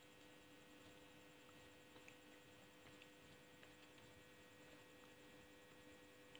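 Near silence: a faint steady electrical hum with a few faint soft clicks about two to four seconds in.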